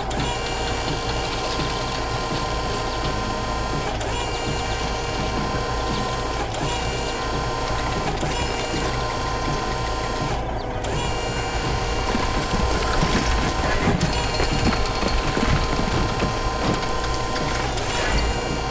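Construction machinery sound effect: a machine running steadily with whirring and clattering, with a few sharp knocks and a brief drop in the high end about ten seconds in.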